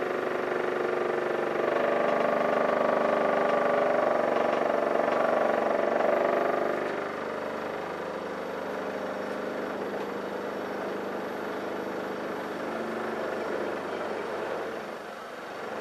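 Wood lathe running steadily with a platter spinning on it, a machine hum of several steady tones. It is louder from about two seconds in until about seven seconds, then settles to a lower level.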